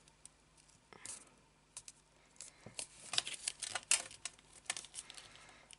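Paper being folded and creased by hand: soft rustles and small crackles, sparse at first and busier in the second half as a bone folder is run along the crease.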